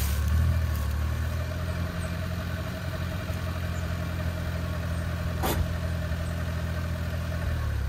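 Suzuki Carry 4x4 mini truck's engine running steadily at an even pitch, stopping near the end. A single sharp click about five and a half seconds in.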